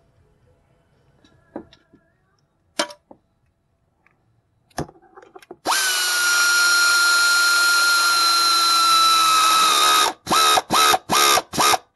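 Power drill driving a socket on the alternator's belt-adjusting bolt to tension the serpentine belt: a couple of clicks as the socket goes on, then the drill runs steadily for about four seconds, its pitch sinking slightly as the bolt takes up load, and ends with four short bursts of the trigger.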